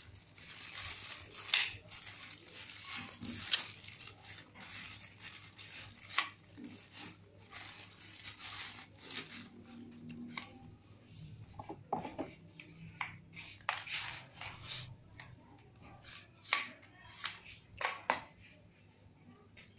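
Clear plastic wrapping crinkling as an aluminium tripod is pulled out of it, followed by a series of sharp clicks and knocks from the tripod's legs and plastic fittings being handled and set down on a tile floor.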